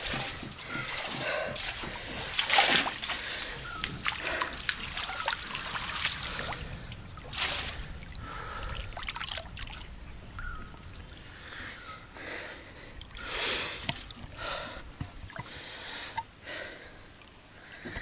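Pool water splashing and sloshing close by as a person swims, in irregular surges.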